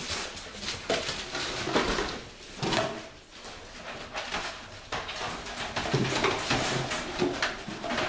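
Dogs moving about with irregular clattering and knocking, and a few short whimpers.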